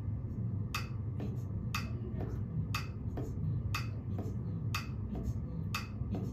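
Metronome clicking steadily, about one click a second, with a softer tap falling between each pair of clicks as the off-beat is played against it.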